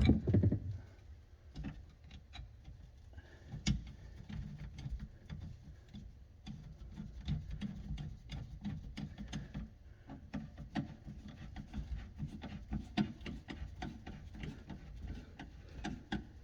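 Irregular small clicks, taps and rubbing of a hand tool working on the dishwasher drain hose connection on a garbage disposal, being tightened down, with a louder knock at the very start.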